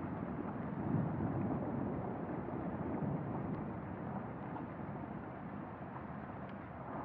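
Steady low rumbling noise with no clear tone, part of an ambient soundscape. It swells about a second in and eases off slowly toward the end.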